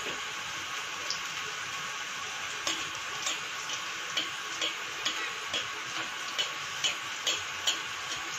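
Pua batter deep-frying in hot oil in an iron kadhai: a steady sizzle. From about three seconds in, light ticks repeat about twice a second over it.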